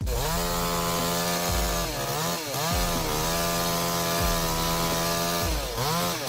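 Chainsaw running at high revs, cutting. Its pitch dips and recovers twice, about two seconds in and again near the end.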